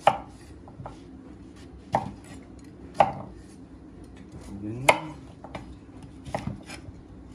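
Chef's knife chopping peeled crown prince squash into cubes on a wooden chopping board: irregular sharp knocks of the blade meeting the board, a few loud ones with lighter taps in between.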